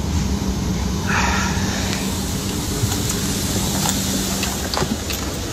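Steady rush of air-conditioning airflow inside a parked Boeing 737 cabin, with a low steady hum under it. A brief rustle about a second in and a few light taps near the end.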